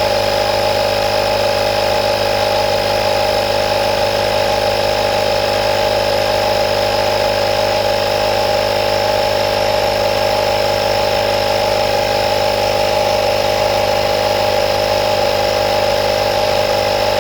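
Portable electric air compressor tire inflator running steadily, a loud even motor drone with a fixed whine, pumping air into a car tire toward its preset pressure.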